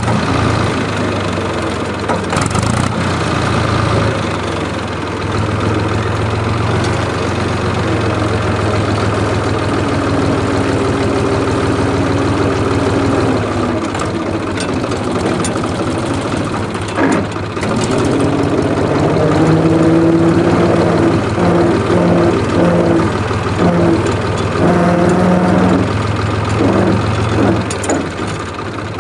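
IHC 383 tractor's three-cylinder diesel engine running steadily under way. In the second half a wavering higher tone comes and goes over the engine.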